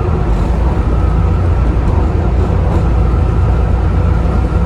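Volvo B7TL double-decker bus under way, heard from on board. Its six-cylinder diesel engine gives a steady low drone, and over it the loud engine cooling fans make a steady whine.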